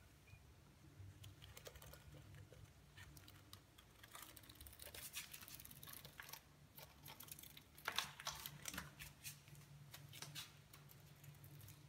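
Kittens pawing at a moth against a glass sliding door: faint, irregular light taps and scratches, thickest in the middle of the stretch, with one sharper click about eight seconds in, over a low steady hum.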